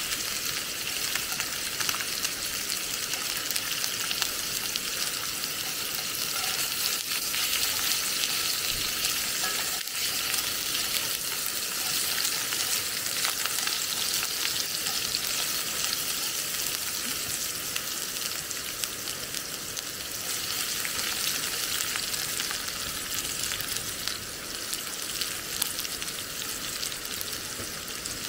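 Food frying and sizzling steadily in cast-iron cookware, a continuous hiss with many fine crackles and pops.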